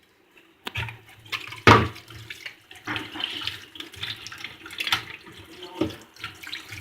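Tap water running into a sink and splashing unevenly, with a few knocks and clunks, the loudest about two seconds in.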